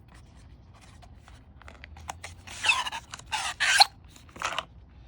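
Packaging being opened by hand: faint light clicks and taps, then about halfway through three short bursts of scraping and rustling, the middle one the loudest.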